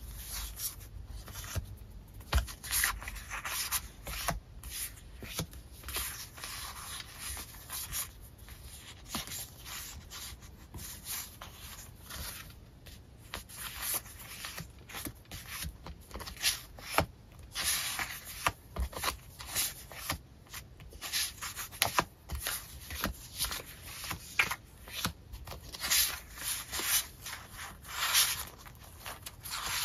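Sticker sheets being handled and sorted by hand: sheets sliding, rustling and tapping against one another in irregular bursts, with occasional sharper clicks.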